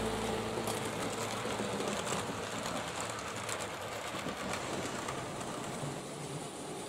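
Model railway train running along the layout's track: a steady, fairly faint rolling sound with a few faint clicks.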